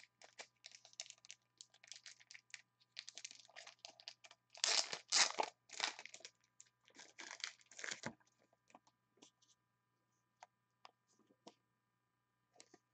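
Crinkling and tearing of plastic trading-card packaging handled by hand, in dense crackly bursts that are loudest about five seconds in; after about eight seconds only a few soft ticks remain.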